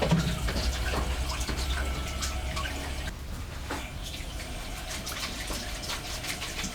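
Water running and splashing, with many small clicks and knocks; a low hum under it stops about three seconds in and the sound grows a little quieter.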